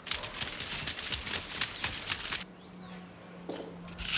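A rapid clatter of running footsteps for about two and a half seconds. Then it turns quieter, with a low steady hum.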